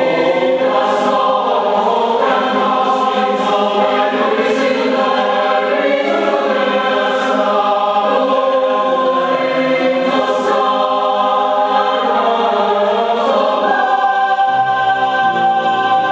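Mixed chamber choir singing, with several crisp 's' consonants sung together. Near the end the upper voices hold a long high note while lower notes move beneath it.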